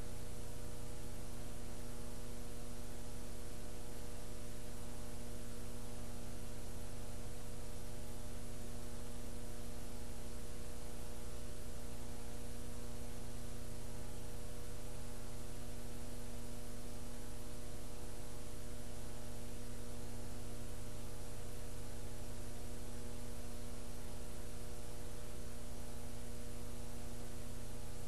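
Steady electrical mains hum with an even hiss beneath it, unchanging: the noise of an empty audio channel with no programme sound on it.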